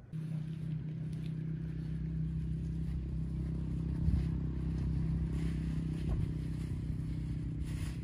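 A motor running steadily with a low, even hum, starting abruptly, with a brief knock about four seconds in.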